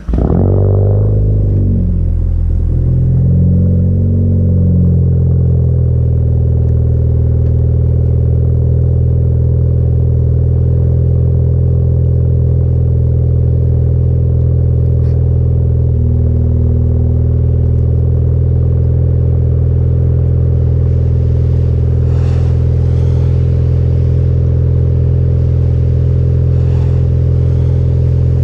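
Car engine with an AWE Track exhaust starting up. It flares high and drops back within the first second, wavers briefly for a few seconds, then settles into a loud, steady idle.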